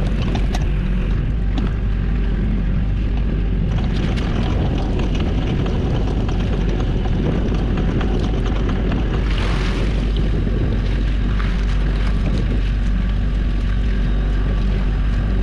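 A small fishing boat's engine running steadily, with water sloshing along the hull and a few brief knocks.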